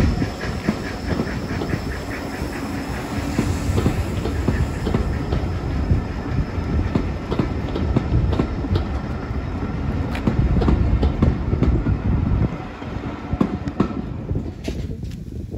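Heritage passenger coaches rolling past at low speed, their wheels clicking steadily over the rail joints over a low rumble. The sound drops away near the end as the last coach clears.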